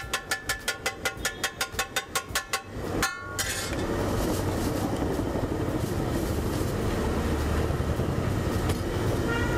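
Metal spatula rapidly striking a flat griddle (tava), about five ringing clangs a second, as pav bhaji is worked on it. A final ringing strike about three seconds in, then a steady noisy hiss with a low rumble.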